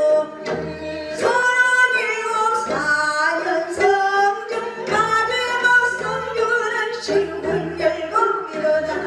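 A woman singing a Korean folk song (minyo) into a microphone, her voice sliding and bending between held notes, over instrumental accompaniment with low notes coming and going underneath.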